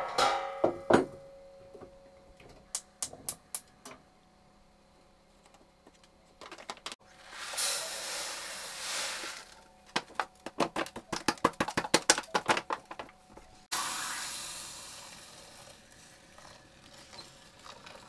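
Kitchen knife chopping on a cutting board in a quick run of strokes, about eight a second, with a few single knocks earlier. Two spells of hissing come before and after the chopping, the second starting suddenly and fading.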